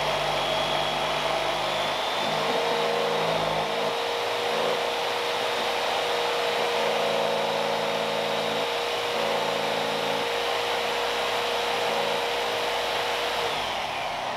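Corded Porter-Cable jigsaw running steadily as it cuts a round hole through a wooden countertop, its motor winding down near the end.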